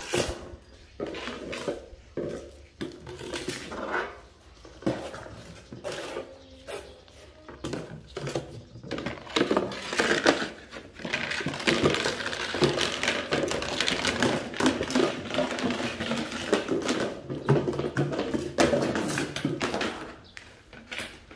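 A plastic basket clattering and scraping on a tile floor as a puppy noses, chews and shoves it around: irregular knocks at first, then a busier stretch of scraping and clatter in the second half.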